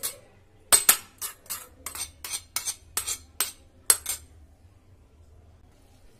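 Steel spoon clinking and scraping against a small metal pan, a quick run of about a dozen sharp clinks, as roasted grated coconut is knocked out of the pan into a pressure cooker.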